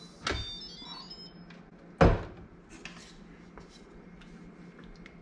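Instant Pot lid being unlatched and lifted off, with a click just after the start and a loud clunk about two seconds in as the lid comes down, followed by light taps and scrapes of a wooden spoon against the stainless steel inner pot as the cooked wheat berries are stirred.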